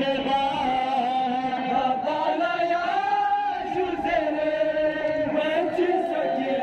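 Men chanting a noha, a Shia mourning lament, into microphones: a melody sung in long, slowly gliding notes without a break.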